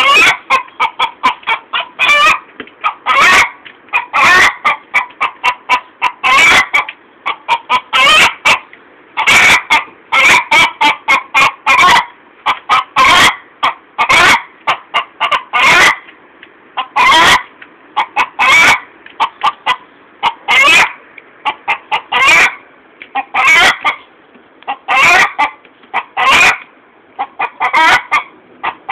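Hen's egg song after laying: runs of quick clucks, each building to a long, loud squawk, repeated over and over.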